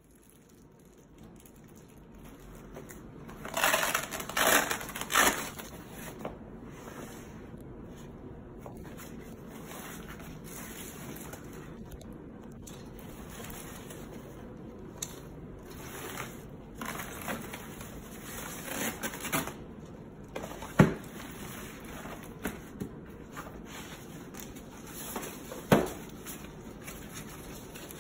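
Canvas fabric rustling and crinkling as a folding khaki storage bag is handled and unfolded, with a loud bout of rustling about four seconds in. Two sharp knocks stand out, one around the two-thirds mark and one near the end.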